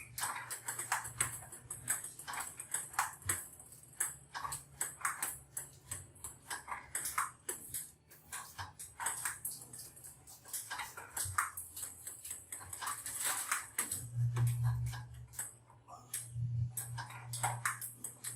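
Table tennis balls clicking rapidly and irregularly off paddle and table, several hits a second, under a low steady hum that grows louder in the last few seconds.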